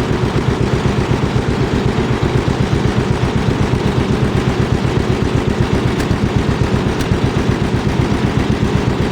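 John Deere 70's two-cylinder engine running at a steady, low speed, with an even, popping beat of evenly spaced firing pulses.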